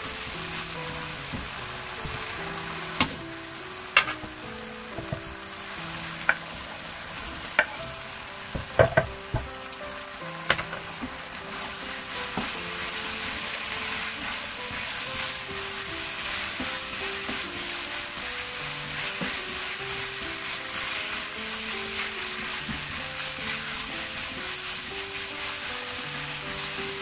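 Vegetables and ham in gochujang sauce sizzling in a nonstick wok while being stirred with a spatula, with several sharp knocks of the spatula against the pan between about 3 and 10 seconds in. The sizzle gets a little louder and steadier after about 12 seconds, over soft background music.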